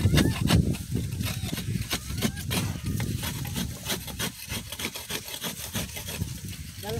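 A wooden-handled hand tool scraping and digging into hard, dry soil at a burrow opening, making a quick, irregular run of scrapes and knocks.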